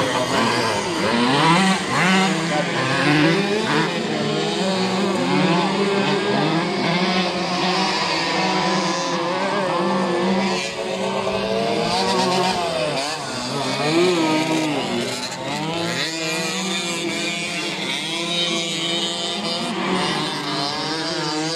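Several tuned 50cc racing moped engines at once, each whining up and down in pitch as the riders accelerate and back off around the dirt track.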